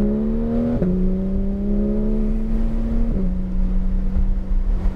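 Porsche 911 GT3's flat-six engine pulling hard under acceleration, heard from inside the cabin. Its pitch climbs, drops sharply at an upshift about a second in, climbs again, and drops at a second upshift about three seconds in, then holds steady.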